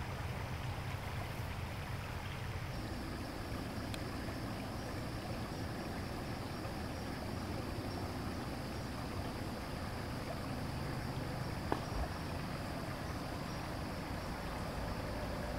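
Steady rushing hiss of water at a beaver dam, heard through a trail camera's microphone, with one sharp click about twelve seconds in.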